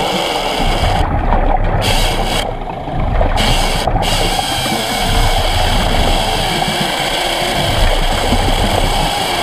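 Hydraulic chainsaw running underwater on about 4 gallons per minute of hydraulic flow, cutting into a submerged wooden post. It makes a loud, steady, dense mechanical noise with a strong buzz in the middle range.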